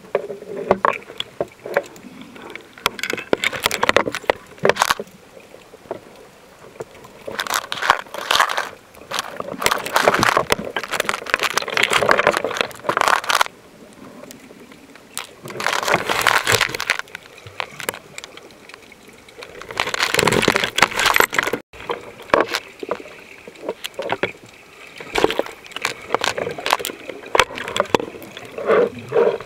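Water sound picked up by an underwater camera: irregular swells of rushing, crackling water lasting a few seconds each, full of small clicks, between quieter stretches.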